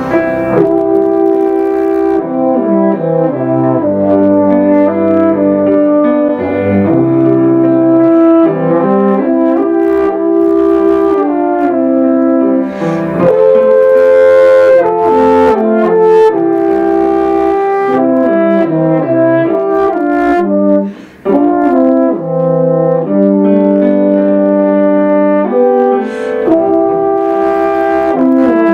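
Live instrumental trio of piano and two brass horns, one of them a low upright-belled horn, playing a song in harmony, with a brief break about 21 seconds in.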